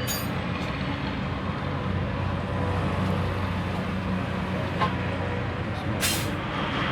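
Car engine idling steadily with an even low hum. There is a click at the start and a short sharp hiss about six seconds in.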